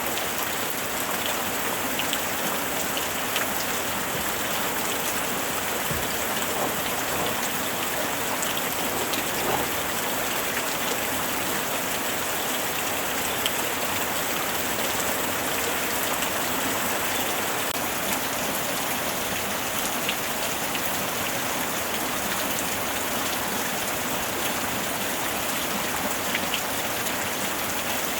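Steady rain falling without thunder, an even hiss with scattered individual drops ticking onto surfaces.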